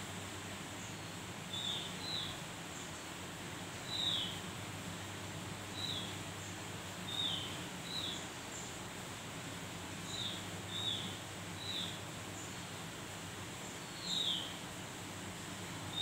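Javan grey-throated white-eye (opior jawa) calling: short, downward-slurred high chirps, one every second or two, some in quick pairs, over a steady low hum.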